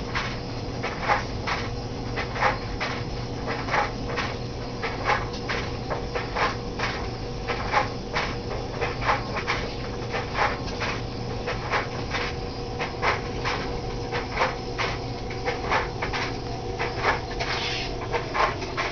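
Homemade metal thermoacoustic Stirling engine running, its glass-syringe power piston making light, sharp knocks at an uneven pace, about one or two a second, over a faint steady hum.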